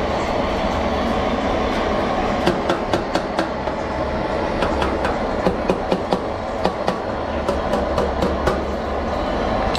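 Irregular light clicks and taps from hands and a wooden stick working on a truck radiator's core and plastic top tank, over a steady rumbling background noise.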